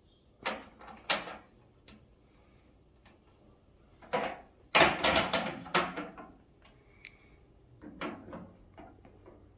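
Handling noises from parts and packaging being moved and unwrapped: a few short knocks and rustles, with a louder busier stretch about halfway through.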